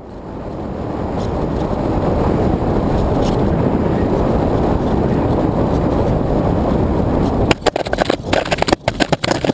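Wind rushing over the onboard camera of an RC foam airplane gliding in, building over the first couple of seconds and then holding steady. From about seven and a half seconds in it gives way to a quick, irregular run of knocks and scrapes as the plane touches down and slides along the ground.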